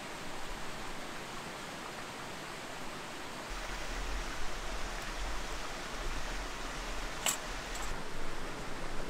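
Steady rushing of a rocky mountain stream, an even hiss of flowing water, with two short sharp clicks a little after seven seconds in.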